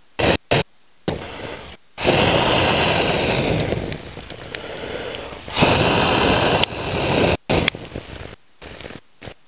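Two long stretches of rustling, scraping noise with a few sharp clicks; the sound cuts out abruptly several times in between.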